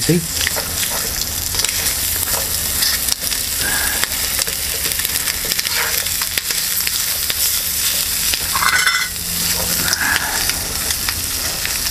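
Bacon sizzling as it fries in a small steel camping pot, while a fork stirs and scrapes the pieces across the pot bottom several times. The bacon is sticking to the pot.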